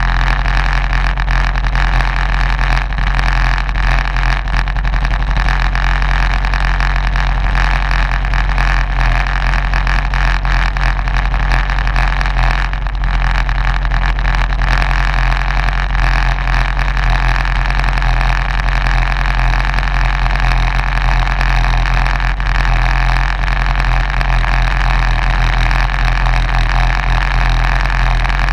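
Racing kart engine idling steadily while the kart stands still, with no revving or change in pitch.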